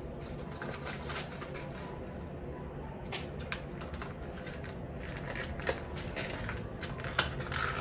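Small paperboard box being opened and unfolded by hand: scattered light clicks, taps and rustles of the card.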